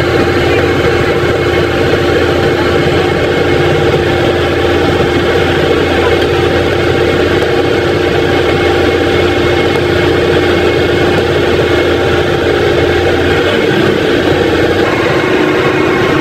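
Vehicle engine idling steadily with a constant hum; its low rumble drops away about thirteen seconds in.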